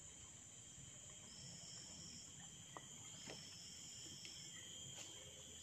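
Faint insect chorus: a steady high-pitched drone, with a second, higher note that comes and goes in stretches of about a second, and a few soft ticks.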